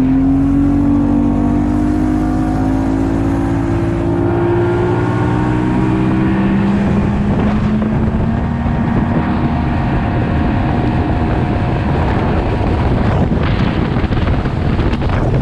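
An engine revving up and then running steadily at speed, its pitch easing slightly lower in the second half, with a rushing noise under it.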